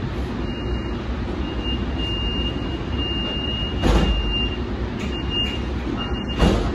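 Cab of a Siemens light-rail car with a steady low hum and rumble, a high electronic tone sounding on and off, and two sudden knocks, the louder one near the end.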